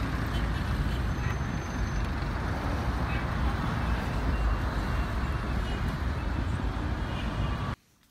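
Steady outdoor city noise: a rumble of road traffic with faint voices, which cuts off suddenly near the end.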